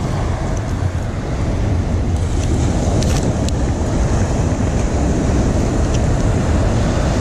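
Steady, rumbling noise of wind buffeting the microphone over beach surf, with a couple of faint clicks about three seconds in.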